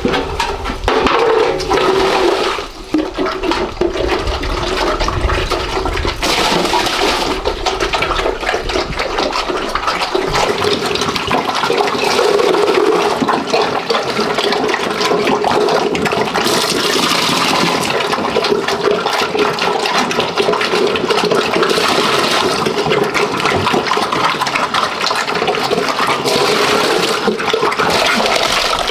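Water running and splashing steadily.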